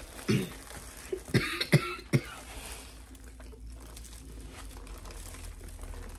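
A person coughing, about four short coughs in quick succession in the first couple of seconds.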